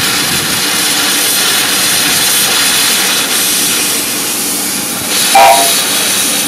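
Miniature steam locomotive moving off slowly, with steam hissing steadily from its open cylinder drain cocks. About five seconds in comes one short, loud toot of its whistle.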